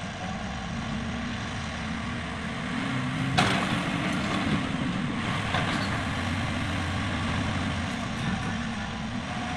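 JCB excavator's diesel engine running steadily while loading a dump truck. About three and a half seconds in there is a loud crash as the bucket drops rock into the truck bed, then smaller clatters of falling rock about one and two seconds later.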